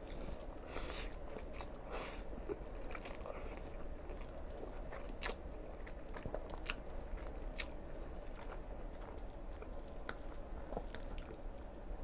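Close-miked eating of sauce-coated black bean instant noodles: noodles sucked in from a fork and chewed, with scattered short wet mouth clicks.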